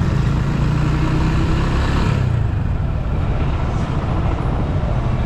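Motorcycle engine running at a steady pace under the rush of wind and road noise. Its note weakens about halfway through, leaving mostly road noise.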